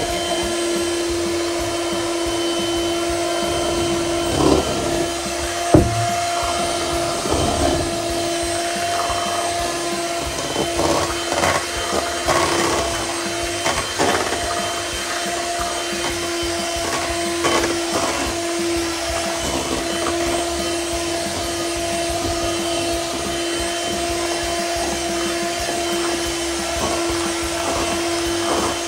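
Electric hand mixer running steadily with a hum, its beaters whisking thick cake batter in a stainless steel bowl. Now and then there is a short knock as the beaters hit the bowl.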